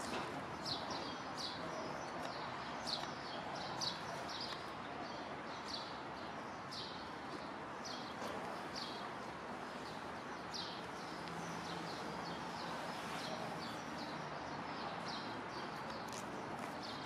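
A small bird chirping over and over, short high chirps about once or twice a second, over a steady background of outdoor noise.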